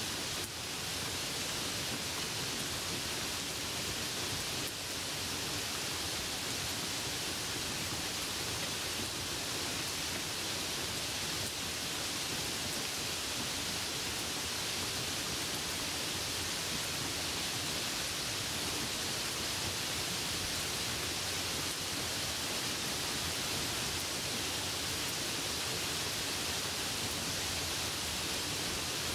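Steady rain, a dense even hiss of countless drops with no single drop standing out and no let-up.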